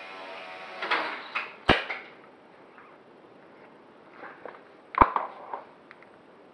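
HiSky HCP60 micro RC helicopter's motor whirring, then stopping just under a second in as the helicopter comes down, followed by a few sharp knocks as it strikes the floor. Some seconds later a sharp click and light clatter as the small helicopter is handled and picked up.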